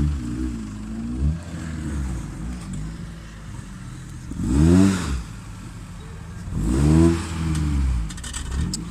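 Off-road vehicle engine revving in repeated bursts, rising and falling in pitch, with two hard revs about halfway through and again about two seconds later. A few short clicks or rattles come near the end.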